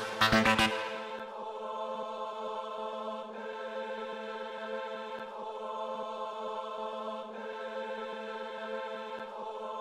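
Electronic music: the beat stops about a second in, leaving a sustained chord over a steady low drone that shifts slightly about every two seconds as the track winds down.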